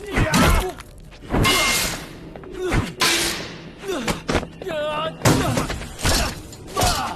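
Fight-scene sound effects: a rapid series of hits and thuds, with a crash of breaking glass about three seconds in, over background music. Short cries are mixed in.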